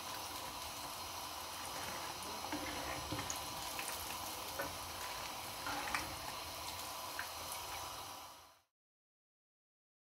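Hot oil sizzling steadily around breaded chicken and potato kebabs shallow-frying in a pan, with scattered small crackles and pops. The sound cuts off abruptly near the end into dead silence.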